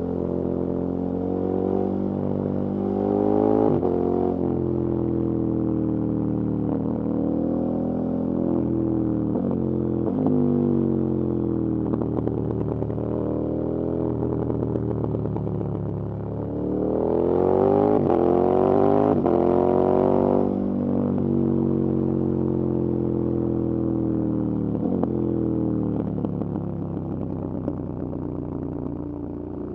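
KTM 1290 Super Adventure S's V-twin engine under way, its pitch climbing and falling with the throttle, dropping suddenly a few times. It pulls hardest at high revs about two-thirds of the way through.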